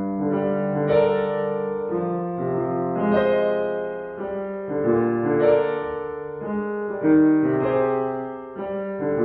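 Grand piano playing a slow passage of held chords that change about once a second, with louder struck chords now and then.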